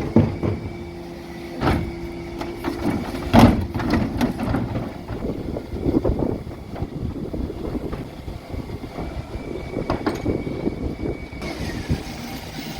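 Dennis Elite 6 refuse truck running while its Terberg bin lift works: a steady whine comes and goes over the engine, with several knocks and bangs, the loudest about three and a half seconds in.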